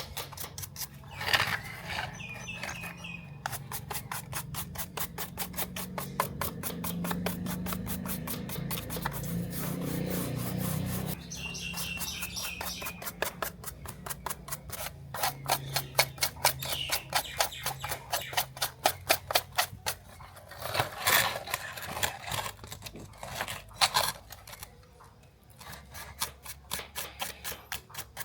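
Quick, even scraping or scrubbing strokes of a hand tool on a small die-cast toy car, continuing with short pauses.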